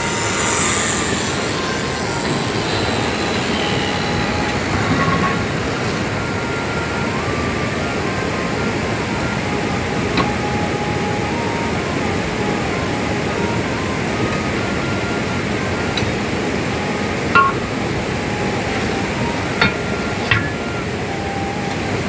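Steady rushing of river water, with a few light metallic clinks in the second half.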